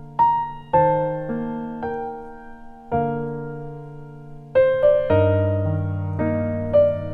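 Background piano music: slow single notes and chords, each struck and left to fade.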